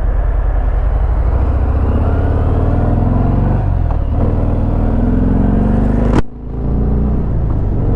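Harley-Davidson Fat Bob's Milwaukee-Eight 107 V-twin running on the road, its note climbing as the bike accelerates. About six seconds in the sound cuts out briefly and dips, then picks up again.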